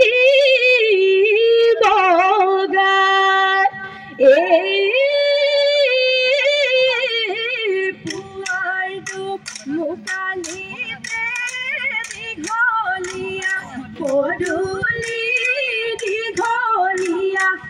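A woman singing an Assamese Bihu song with long, ornamented held notes. About eight seconds in, a light percussion beat of two to three sharp clicks a second joins the voice.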